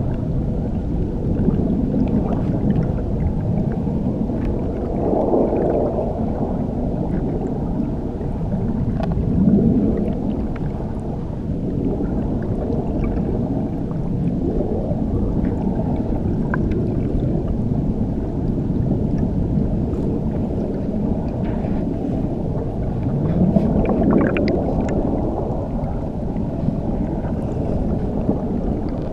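Muffled underwater rumble of churning water beneath a waterfall: a dense, low wash with slow swells about five, ten and twenty-four seconds in.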